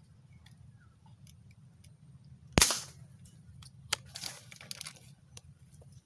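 A single sharp shot from a marble gun about two and a half seconds in, followed a second later by a brief flurry of rustling and clattering; the shot hits a dove in the tree.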